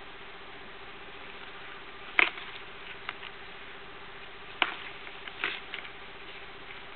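Young tortoises' shells knocking together during courtship mounting: a sharp hard clack about two seconds in, another about halfway through, and a few lighter taps between and after.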